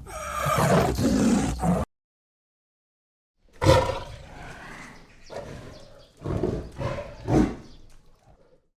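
Tiger roaring; the roar cuts off abruptly about two seconds in. After a short silence, a new roar starts sharply and loudly, followed by a run of shorter roars that fade out near the end.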